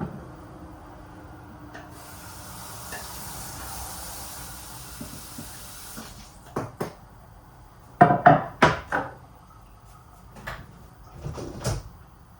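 Kitchen handling sounds: a steady hiss for about four seconds, then a run of sharp knocks and clatters of cookware or utensils, loudest in a quick cluster a little past the middle.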